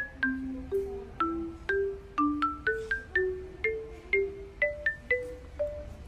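Music: a light tune of short, quickly fading notes, a low line and a high line moving together at about two notes a second.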